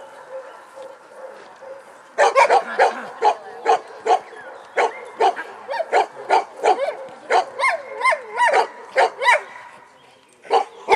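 A large black-and-tan dog barking over and over, about three barks a second, from about two seconds in, at a man threatening it with a raised stick. It is a defensive reaction to a threatening stranger.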